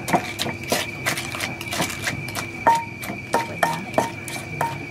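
Wooden pestle pounding green papaya salad in a clay mortar while a spoon turns it: a series of irregular hollow knocks, about two a second, a few of them ringing briefly.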